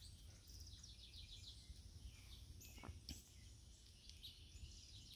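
Near silence with a faint songbird singing: short trills of rapid high notes, repeated about every two seconds.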